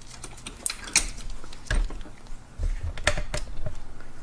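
Irregular light metallic clicks and taps of hand tools and small fasteners being handled against a scooter engine's fuel line clamps and throttle body, a few louder knocks among them.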